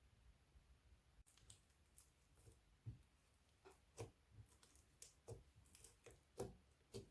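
Crunchy slime being handled: faint, irregular crackling clicks, a few each second, starting about a second and a half in.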